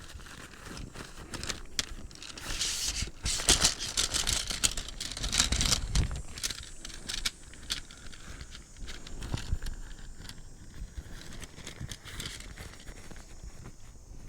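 Rustling and crinkling of a nylon tent-pole bag with light clicks and knocks of the tent-pole sections as the poles are worked out of it. The handling is loudest a few seconds in, then settles to quieter rustling and clicks.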